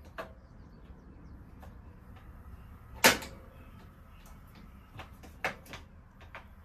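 Propane appliance's push-and-turn spark igniter clicking as it is tested after the gas lines are primed: one sharp loud click about three seconds in, then a few fainter clicks near the end.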